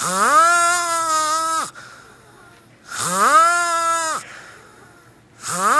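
A man snoring. Each breath comes out as a long, high-pitched whining note that slides up at the start and drops off at the end. There are three in a row, about three seconds apart.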